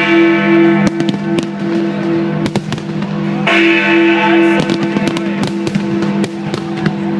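Fireworks cracking and banging repeatedly over loud music with a pulsing, repeated note.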